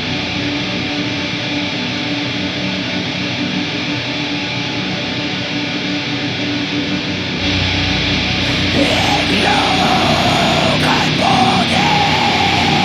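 Raw black metal recording playing, a dense wall of distorted guitars and drums. About seven seconds in the sound thickens and a high, wavering held note comes in over it.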